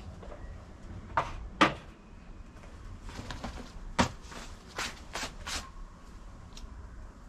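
Leather work gloves being pulled off and handled: scattered rustles and sharp taps, the loudest about a second and a half in and at about four seconds.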